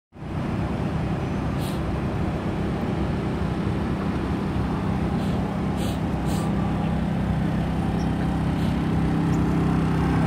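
Steady low engine hum from a row of parked food trucks.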